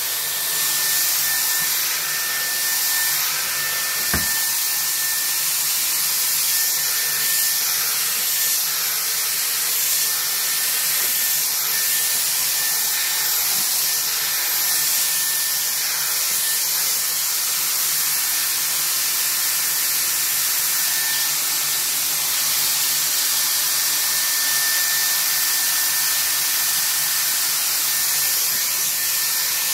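Dyson Airwrap with the firm smoothing brush running steadily, a rush of air with a thin high whine, as it is brushed through afro hair. A single sharp click about four seconds in.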